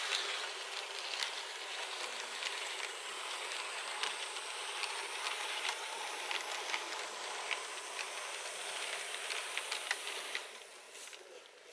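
Märklin model train coaches rolling past close by: a steady hiss of wheels on the track with irregular sharp clicks over the rail joints and a faint high whine. The sound drops away suddenly about ten and a half seconds in as the train comes to a stop.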